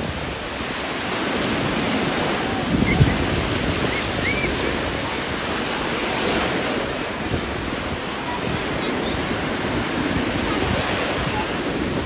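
Small waves breaking and washing up over a sandy shore, a steady rushing noise that swells and eases.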